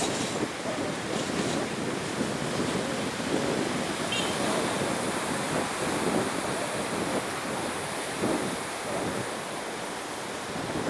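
Gusty wind blowing across the microphone: a steady rushing noise that rises and falls, covering everything else.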